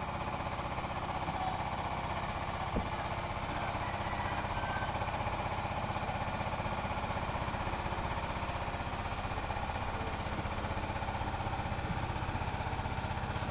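Small boat engine running steadily at an even speed with a fast, regular putter. A single short knock about three seconds in.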